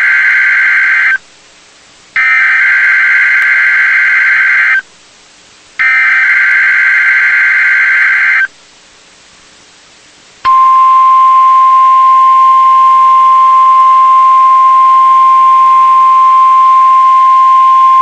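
NOAA Weather Radio SAME header: the end of one burst of warbling digital data and then two more bursts, about a second apart. About ten seconds in the steady 1050 Hz warning alarm tone starts, sounding here as part of the weekly test of the public warning system.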